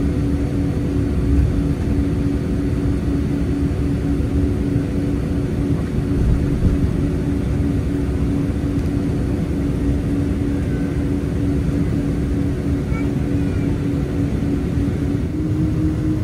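Cabin noise of a Boeing 767-300ER taxiing, heard from a seat over the wing: a steady low rumble under a droning hum of several steady tones. Near the end the main hum steps up slightly in pitch.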